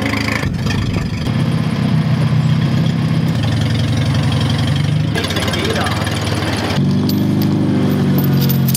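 Old forklift's engine running, working as it moves and lifts timber; its note shifts a few times, most clearly about five and seven seconds in.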